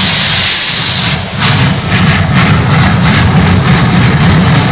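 Three Shay geared steam locomotives working together under load: a loud hiss of steam cuts off suddenly about a second in, giving way to heavy, rapid exhaust chuffing over a deep rumble.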